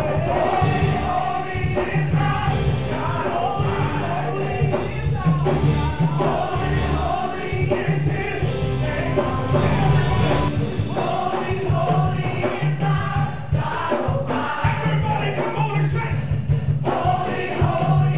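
Gospel praise-and-worship song performed live: a choir of singers over a band with bass and steady beat, a tambourine among the percussion.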